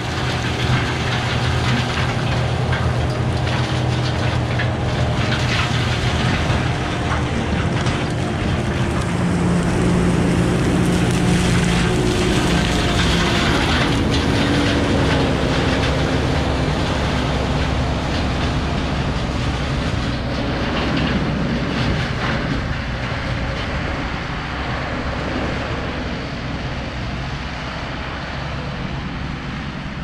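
Kubota SVL95 compact track loader's diesel engine running hard while its hydraulic CID 60-inch disc mulcher spins and grinds brush and small trees into chips, a dense steady din with a low engine hum beneath. It gets gradually quieter over the last several seconds as the machine moves off.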